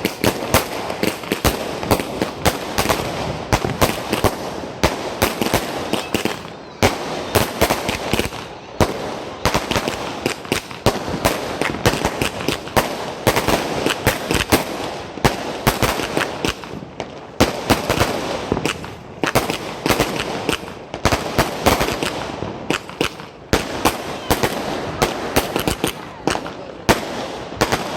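Standard Fireworks 'Speed 200' firework going off: a fast, unbroken run of sharp bangs, several a second, with crackling between them.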